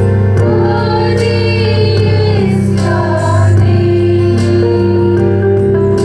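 A prayer song: voices singing over long held instrumental chords.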